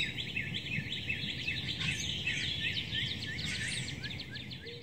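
Several songbirds chirping and calling at once, many quick overlapping notes, over a low steady background rumble; the sound fades near the end.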